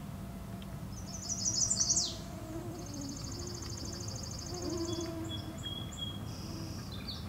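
A songbird singing: a quick run of high trilled notes about a second in that ends in a fast downward sweep, then a long, even trill lasting about three seconds, then shorter trilled phrases near the end.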